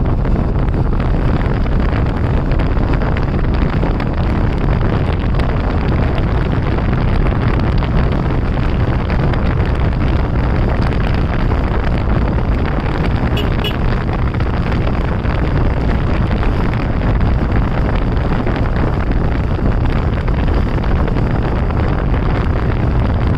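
A vehicle on the move with heavy wind buffeting the microphone: a steady, loud, deep noise with no let-up.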